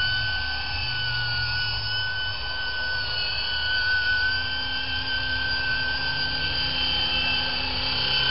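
500-class radio-controlled helicopter with a six-blade fenestron tail rotor in flight, giving a steady high-pitched whine that wavers slightly in pitch.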